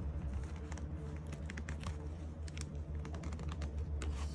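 Small, irregular metal clicks and ticks from a steel prying tool and the knife's parts, as a blade of an Ulster camping knife is levered against its backspring. A steady low hum runs underneath.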